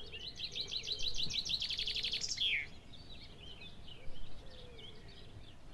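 Small birds singing: a rapid run of repeated high chirps for about two and a half seconds, ending in a falling note, followed by scattered softer chirps.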